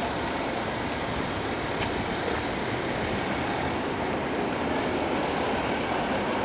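Steady, even noise of a Toyota minivan's engine running at idle close by, with no revving or sharp knocks.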